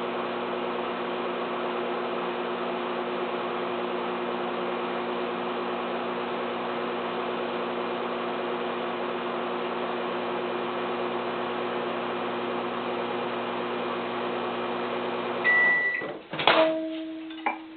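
Microwave oven running with a steady hum while heating sweet rice flour dough. Near the end it stops, gives a short high beep, and there are a few sharp clicks and clunks.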